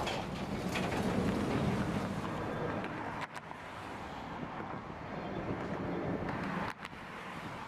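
Low rumble of a freight train crossing a steel swing bridge, with wind on the microphone. The sound cuts off abruptly about three seconds in to quieter wind noise, and cuts again shortly before the end.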